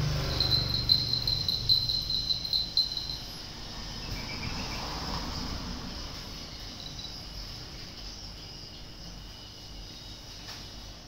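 Insects chirping: a rapid, pulsing high trill for about the first three seconds, over a steady high insect hum that carries on throughout.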